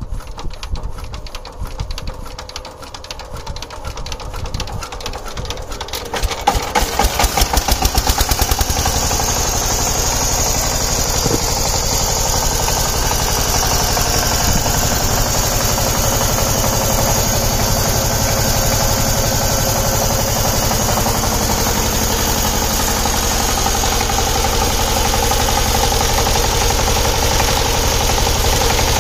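Single-cylinder diesel engine of a two-wheel power tiller being cranked: a slow, uneven run of puffs for about six seconds, then it catches with a few seconds of loud, even chugging pulses and settles into steady running from about nine seconds in.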